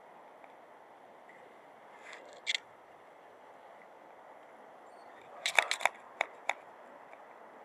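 A few sharp clicks over steady faint outdoor hiss: a pair about two and a half seconds in, then a quick irregular run of five or six louder clicks a little after five seconds.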